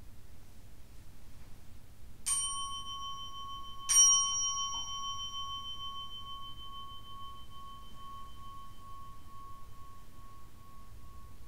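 A ceremonial bowl bell is struck twice, about a second and a half apart, the second stroke louder. Its clear tone then rings on and fades slowly. In a Zen service this marks the bows.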